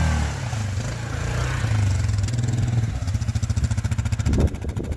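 ATV engine running under load, then easing off about a third of a second in and running at low revs with an even pulsing beat.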